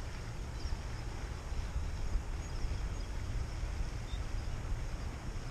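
Wind buffeting the camera microphone: a steady, constantly fluttering low rumble with a soft outdoor hiss above it.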